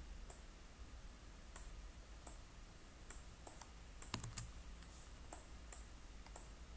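Faint, scattered clicks of a computer mouse and keyboard, a few each second with a small cluster of clicks about four seconds in, over a low steady hum.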